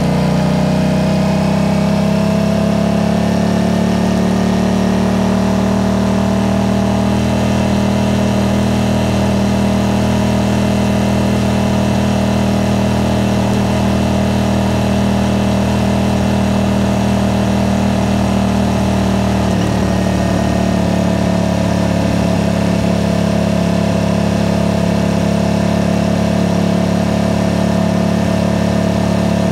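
Aprilia RS660's parallel-twin engine running through a Mivv aftermarket exhaust while cruising at low city speed. The note rises a little in the first few seconds, then holds steady, wavering briefly about twenty seconds in.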